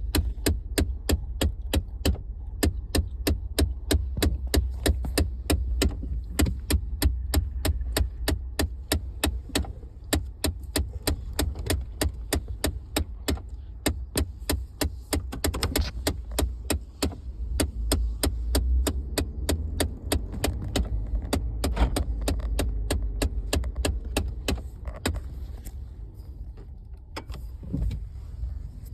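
Rapid, even ticking from the dashboard of a 2014 Ford F-150, about three or four clicks a second, over the truck's low rumble. The ticking fades out near the end.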